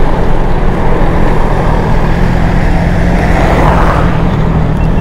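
Superbike running at road speed, with wind rushing loudly over the microphone. A dull swell rises and falls about three to four seconds in.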